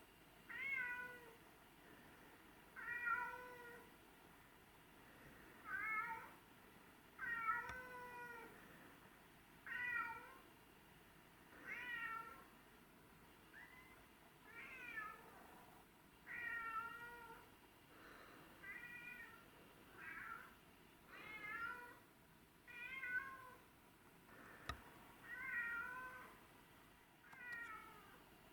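Domestic cats meowing over and over, one drawn-out meow about every one and a half to two seconds: cats begging to be let inside. A single sharp tick comes near the end.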